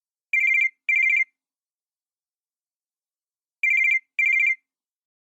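Cell phone ringing with an electronic trilling double ring: two short trills, a pause of about two and a half seconds, then two more trills.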